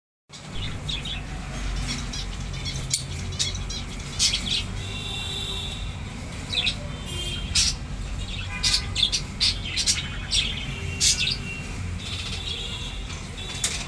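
Lovebirds chirping: many short, sharp, high calls at irregular intervals, over a steady low rumble.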